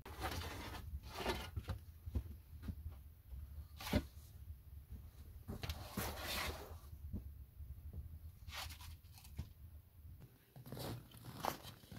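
Rustling, scraping and knocking of a person moving about and handling things, with a sharp knock about four seconds in and a longer rustling scrape a couple of seconds later.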